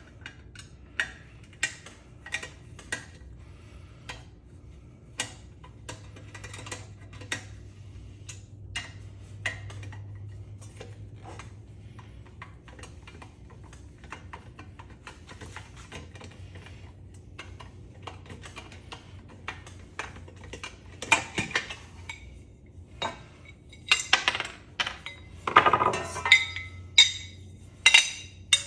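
Small metal parts, screws and pieces from a ceiling fan, clinking as they are handled and sorted, in scattered single clicks with a denser run of louder clinks near the end.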